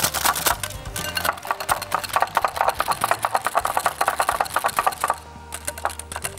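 Wire whisk beating a thin egg, starch and soy sauce mixture in a glass bowl: rapid, even clicking of the tines against the glass, with a brief pause near the end.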